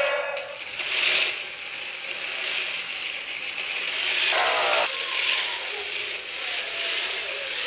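Toy RC cars with omniwheels driving, their small geared electric motors whirring and their plastic wheels rattling. A brief buzzy sound comes about four and a half seconds in.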